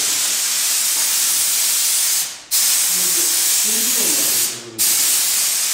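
Compressed-air paint sprayer hissing steadily, stopping briefly twice, about two and a half and four and a half seconds in.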